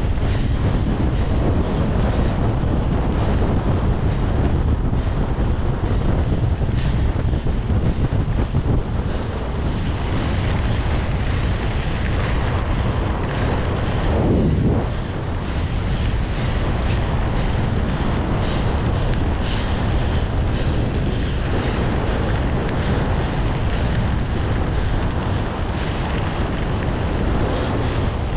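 Loud, steady wind noise buffeting the microphone, heaviest in the low end. About halfway through, a single tone slides down in pitch.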